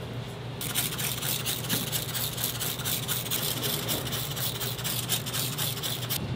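Hand-held spray bottle misting seasoned raw pork cutlets, a quick run of hissing squirts that starts about half a second in and stops just before the end.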